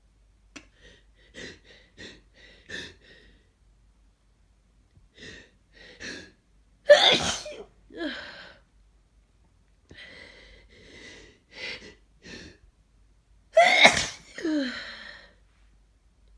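A person with a congested head cold sneezing forcefully twice, about seven seconds apart. Each sneeze is preceded by a run of short, catching in-breaths as it builds.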